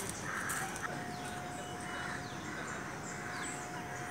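Crows cawing in repeated short calls, with small birds chirping high over them. A faint steady tone sets in about a second in.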